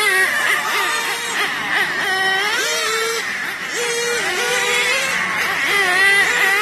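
Novarossi REX nitro engine in an XRAY NT1 1/10 touring car running at high revs with a high-pitched whine, its pitch climbing as the car accelerates and falling back as it lifts for the corners, several times over. The engine is freshly broken in and being fine-tuned.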